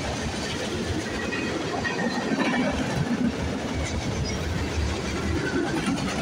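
Freight train cars passing close by: a steady rumble of steel wheels rolling on the rails, with a running clatter of knocks from the wheels over the track.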